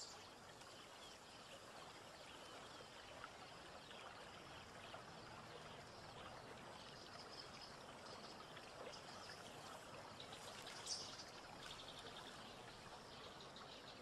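Near silence: faint riverside ambience, a low, even wash of running water, with a brief high chirp near the end.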